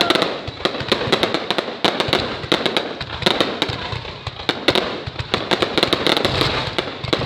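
Fireworks going off: a dense, irregular run of sharp bangs and crackles, some closer together, some spaced out.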